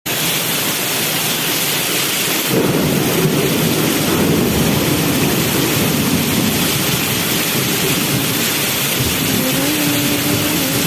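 Very heavy rain pouring down in a steady hiss. From about two and a half seconds in, a low rumble of thunder rolls under it. Near the end, a steady low hum joins in.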